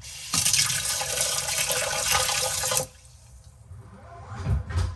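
Water spraying hard from a sink faucet for about two and a half seconds, then cutting off suddenly, rinsing off a dishwasher part. A few low thumps follow near the end.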